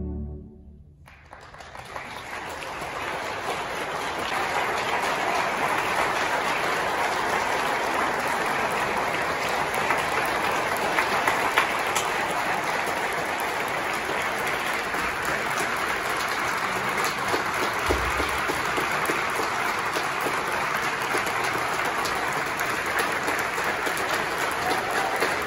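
Concert audience applauding: the clapping starts about a second in, swells over the next few seconds and then holds steady. The last held chord of the orchestra dies away at the very start.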